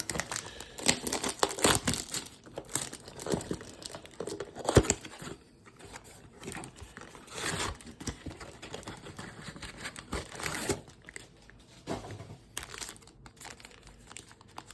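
Plastic wrappers of trading-card packs crinkling and tearing as they are handled and ripped open, in irregular bursts with a sharp crack about five seconds in.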